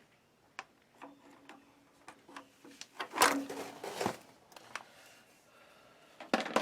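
Hand-work noises at an electric water heater's element access panel: scattered light clicks and knocks, with a louder rustling scrape about three seconds in and a shorter one near the end, typical of pulling out the fiberglass insulation behind the cover.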